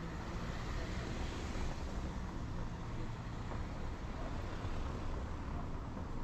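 City street traffic: a steady wash of passing vehicles, with a low hum that fades out about two and a half seconds in.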